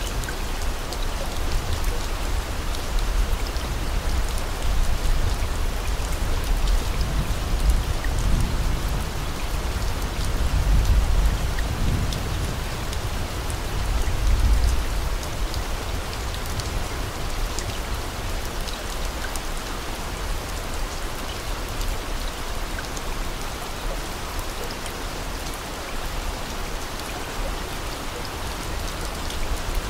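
Steady rain falling on a surface, with fine scattered droplet ticks. A low rumble swells and fades in the first half.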